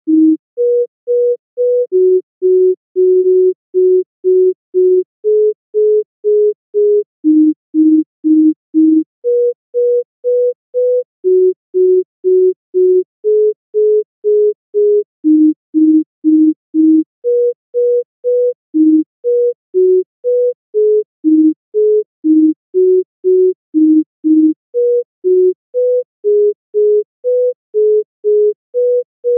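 Pure sine-wave tone from a software modular synth's sine oscillator, stepped by the MANIAC 16-step sequencer clocked at 120 BPM: short separate notes, two a second, hopping among a handful of pitches in the middle register. For the first half it plays runs of three or four repeats of the same note, and in the second half the pitch jumps about more irregularly from note to note.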